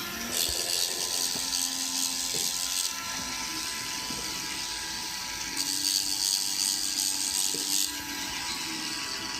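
A small electric motor on a student-built contest mechanism whirring in two runs, the first lasting about two and a half seconds and the second starting a little past halfway.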